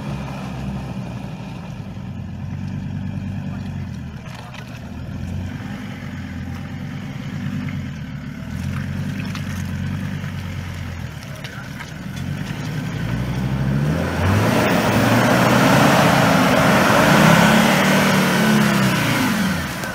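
Ford Ranger 4WD's engine revving up and down as it crawls through deep, slippery mud ruts. About two-thirds of the way in it gets louder, with a rushing of tyres churning mud, and the revs rise and fall before dropping off just before the end.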